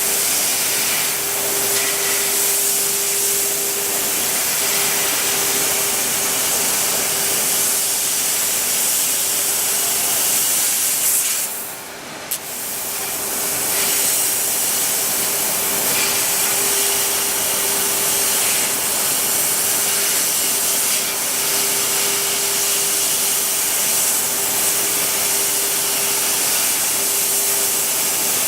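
CNC cutting machine running: a steady, loud hiss with a constant tone underneath. The sound drops away briefly about twelve seconds in, then returns.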